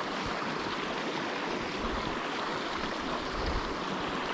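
Small mountain creek flowing, a steady rush of water.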